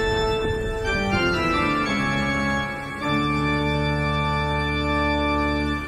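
Organ music: a held chord, then a run of notes stepping downward, landing about three seconds in on a long, low held chord.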